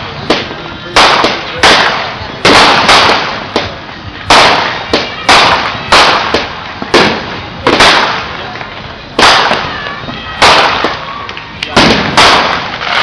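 Fireworks going off in quick succession: about twenty loud bangs, one every half second to a second, each trailing off in an echo.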